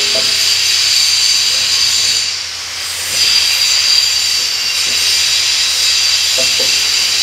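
Wire-feed (MIG) welding arc sizzling steadily as angle iron is welded onto a steel bumper. The arc breaks off briefly about two and a half seconds in, then strikes again.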